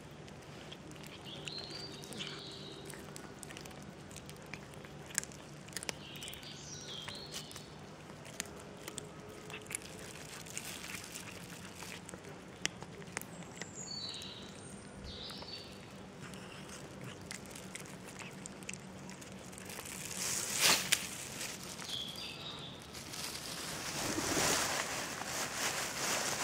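Cats chewing raw fish, with many short wet clicks and crunches, while small birds chirp a few times in the background. A louder rustling comes in near the end.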